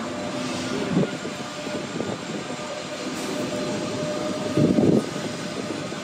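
Steady rumble with a droning whine from a passing train, running through the whole stretch. There is a brief louder knock about five seconds in.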